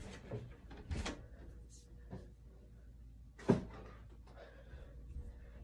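A few faint knocks and rustles of someone handling things in a small room, with one sharper knock about three and a half seconds in.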